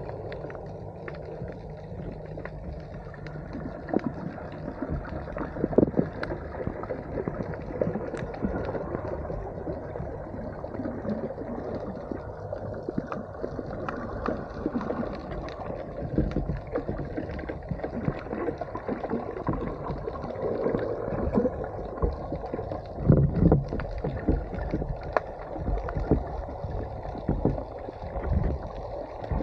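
Muffled underwater sound picked up by a submerged camera: a steady low rush of moving water with gurgling and a few sharp knocks, loudest about 6 and 23 seconds in.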